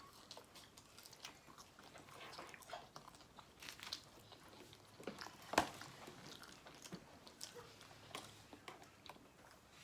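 Faint chewing and biting of food, with scattered small clicks and one sharper click a little past halfway.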